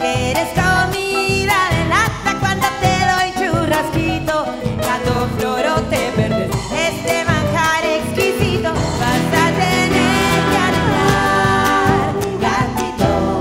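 Live folk band playing the last instrumental bars of a gato, an Argentine folk dance song, on acoustic guitar, keyboard and a drum with cymbals, with a voice singing over the band. It ends on a final accent near the end.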